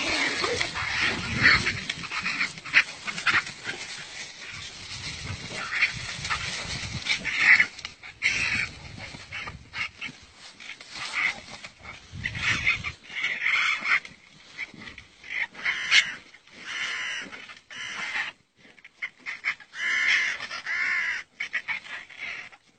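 Dogs mauling a cornered wild animal: bursts of snarling and short high-pitched squeals come and go irregularly, with scuffling in dry leaves between them.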